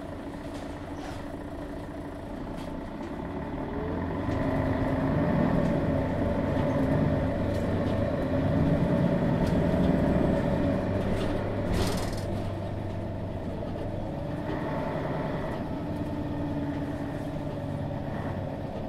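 Mercedes-Benz Citaro G articulated bus's Daimler OM 457 hLA six-cylinder diesel running, growing louder as it works harder from about four seconds in and easing back after about twelve seconds. A short hiss comes about twelve seconds in.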